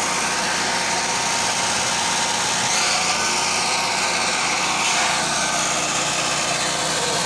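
An engine running steadily at an even speed, with a constant mechanical drone.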